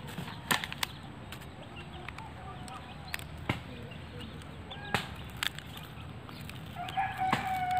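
Scattered light clicks and crackles of a rolled banana leaf being pierced and handled with a thin wooden skewer. A chicken gives a short call near the end.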